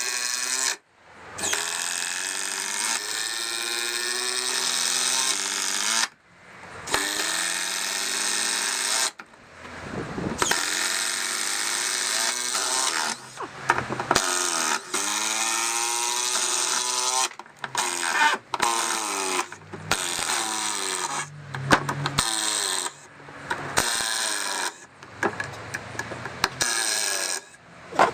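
Two Makita 18 V brushless impact drivers, a subcompact and a regular-size one, running at once as they drive long batten screws into pine and back them out. The motor whine rises and falls and breaks off in short pauses between screws.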